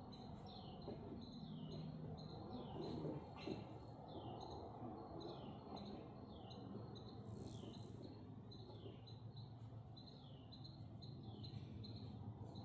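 A bird's short chirp that falls in pitch, repeated evenly over and over against faint background noise.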